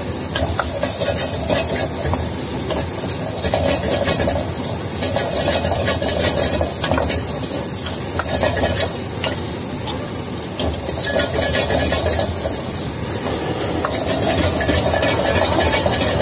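Chicken pieces stir-frying in a hot wok: steady sizzling and hiss, with a metal ladle repeatedly scraping and clattering against the pan.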